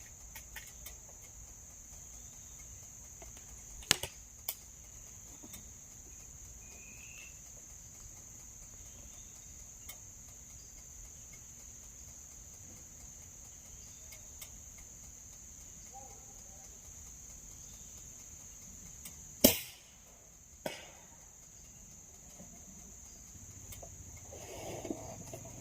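Steady high-pitched drone of insects, with a few faint clicks. About three-quarters through comes one sharp crack, a shot from a Beeman R7 break-barrel spring-piston air rifle, followed a second later by a smaller click.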